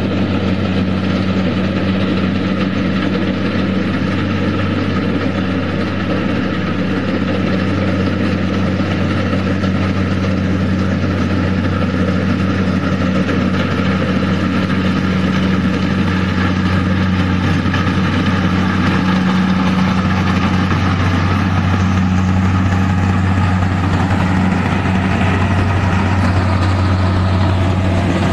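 Rice combine harvester's diesel engine running steadily at working speed while it cuts and threshes rice, a steady low hum that grows a little louder near the end as the machine comes close.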